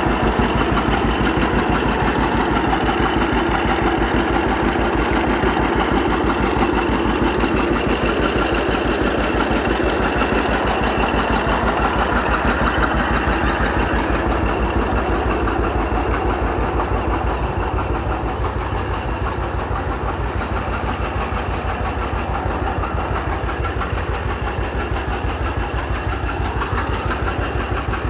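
John Deere two-cylinder tractor engine running steadily with a rapid, even beat, as a Model A belt-drives a 1936 John Deere D to crank it over.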